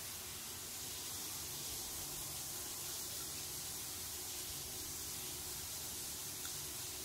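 Quiet room tone: a steady faint hiss with no distinct sounds.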